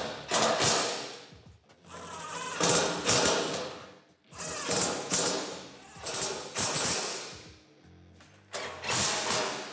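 A cordless drill-driver runs in about six short bursts, tightening down the roof visor bolts. Background music plays throughout.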